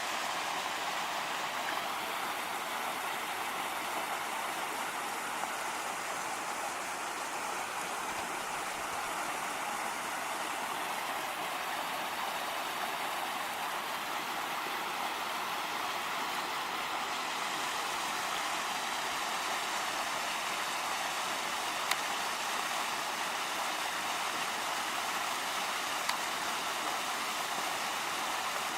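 Small woodland stream waterfall in full spate after heavy rain, a steady rushing of water.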